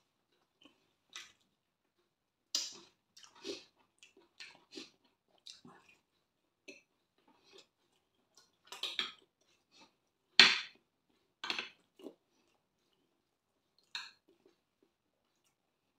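Close-miked eating sounds: chewing and mouth sounds mixed with cutlery tapping and scraping on a glass dish. The sounds come as a scattered string of short, separate clicks and smacks, the loudest about ten and a half seconds in.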